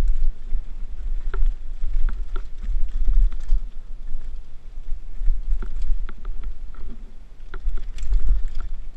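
Mountain bike riding fast down a dirt trail: steady wind rumble on the helmet camera's microphone, with scattered clicks and rattles from the bike and tyres over rocks and ruts.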